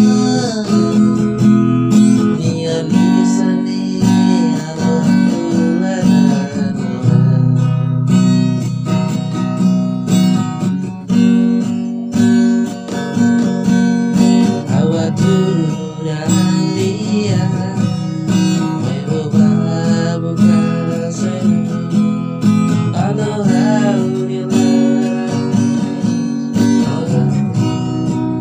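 Music: a song carried by strummed acoustic guitar, playing steadily throughout.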